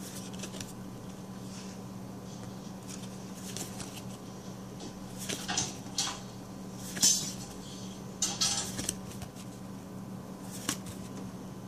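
Crinkling of a foil Magic: The Gathering booster pack and trading cards being handled, in several short bursts with a few sharp clicks, over a steady low hum.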